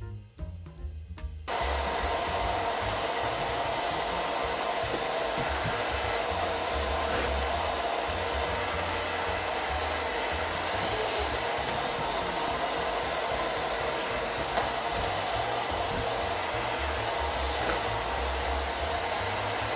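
Hand-held hair dryer running steadily at full blow, a rushing airflow with a faint steady whine, starting abruptly about a second and a half in. It is being used on a lace-front wig to dry the lace glue and set the lace flat.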